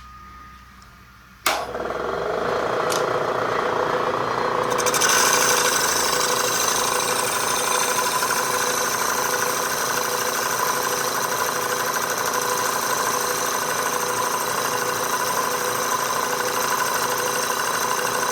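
Milling machine switched on about a second and a half in and running steadily with an even motor hum. From about five seconds in a high hiss joins it as the boring cutter takes a light finishing cut in the router base's bore.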